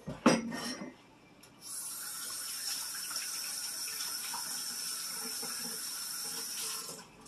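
Kitchen faucet running into a sink for about five seconds: a steady hiss of water that starts abruptly about a second and a half in and shuts off near the end. A short loud knock comes just before it, at the very start.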